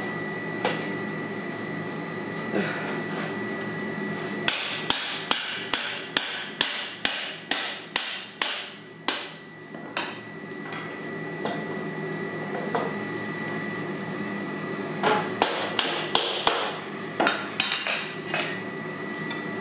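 Blacksmith's hammer striking metal on an anvil in two runs of ringing blows: about a dozen strikes starting about four seconds in, at first nearly three a second and then slowing, and a second run of about eight strikes later on. A steady background hum with a thin high whine runs under them.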